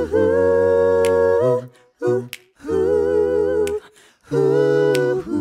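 A four-voice a cappella group, men and women, singing held wordless chords in close harmony, three chords with short breaks between them. Finger snaps click about a second in and again near the end.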